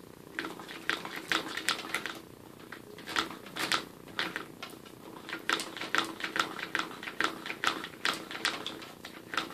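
Lego vacuum engine turned over by hand, its plastic parts clicking and clacking with each turn. The clicks come unevenly at first, then about three a second and more evenly in the second half.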